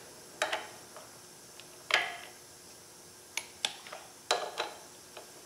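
Torque wrench and socket working the flywheel bolts of a small-block Chevy 350: about seven sharp metallic clicks and clinks, irregularly spaced, the loudest about two seconds in. The wrench's click marks each bolt reaching its 20 foot-pound setting.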